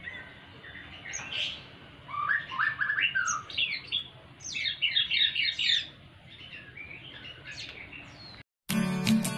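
White-rumped shama fledglings chirping in a cage: scattered short high calls, with quick runs of repeated notes about two and five seconds in. Near the end the calls cut off and acoustic guitar music begins.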